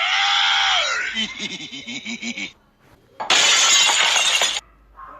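Two meme sound-effect clips in a row. The first is a held pitched sound that slides down after about a second and gives way to a wobbling lower sound. After a short gap comes a loud burst of crashing, shattering noise lasting just over a second, about three seconds in.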